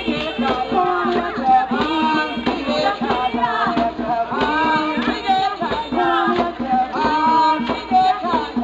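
Music with a held melody line over percussion.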